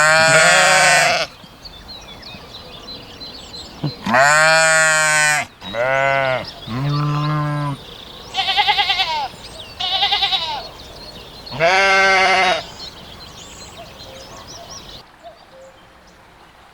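Sheep bleating: about seven separate baas in quick succession, each under about a second and a half. Two calls in the middle are higher-pitched and quavering. The calls stop a few seconds before the end.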